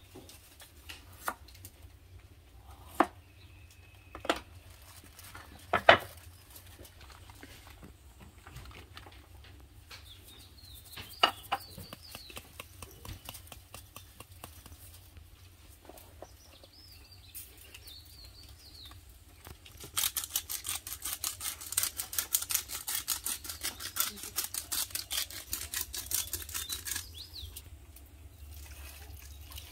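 Hand-preparation sounds while filling a banana-leaf parcel with food: a few sharp knocks and clicks in the first six seconds, then faint bird chirps. About twenty seconds in comes a fast rattle of about six strokes a second that lasts some seven seconds, the loudest sound here.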